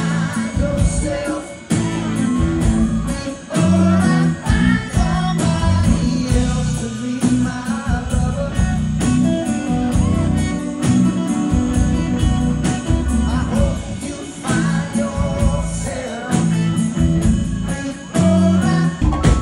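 Live rock band playing: a man singing over electric guitar and a drum kit keeping a steady beat.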